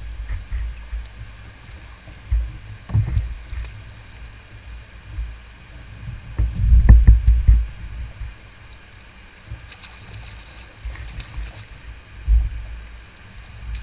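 Dull low thumps and knocks from a plastic fishing kayak and the rod being worked while a hooked catfish is fought beside it, loudest about seven seconds in.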